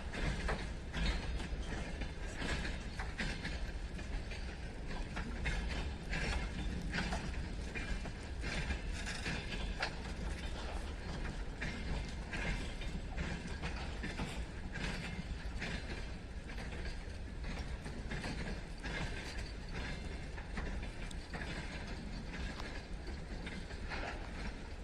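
Freight wagons rolling slowly during shunting, their wheels clicking and knocking irregularly over the rails over a steady low rumble.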